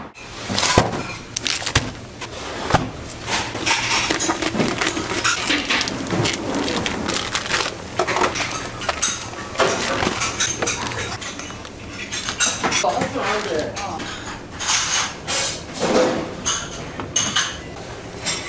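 Dishes and metal utensils clinking and clattering, with many scattered sharp knocks, over background voices. The loudest knocks come about a second in and near three seconds in.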